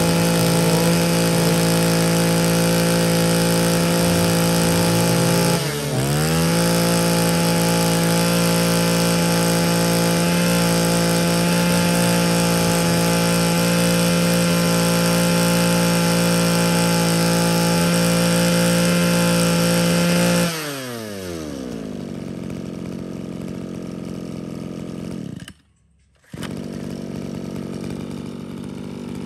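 Mitsubishi TL231 23cc two-stroke brush cutter engine running at high revs. It dips briefly about six seconds in and picks straight back up. About twenty seconds in the throttle is released and it falls to a steady idle, which cuts out for a moment near the end and then carries on.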